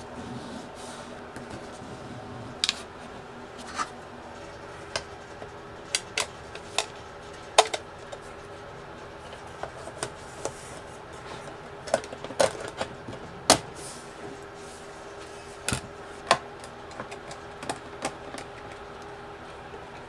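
Irregular sharp clicks and taps, about twenty, from hands and small tools working on a walnut-and-aluminum control panel, over a steady background hum.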